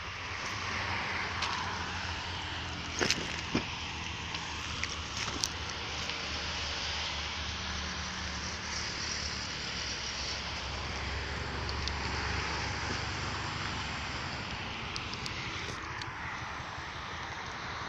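Steady rumble and hiss of a moving vehicle, with a few sharp clicks about three seconds in and again a couple of seconds later.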